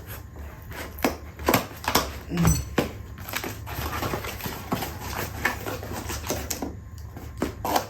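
Irregular clicks, taps and rustling of items and packaging being handled during unpacking.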